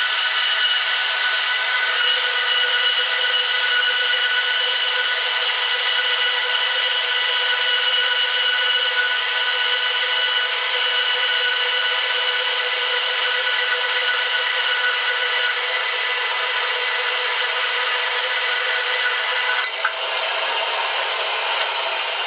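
Mastercraft 9-inch benchtop bandsaw running steadily, its blade slowly ripping a very thin strip off a wooden block fed along the fence. A sharp click about twenty seconds in, after which the cutting sound thins out.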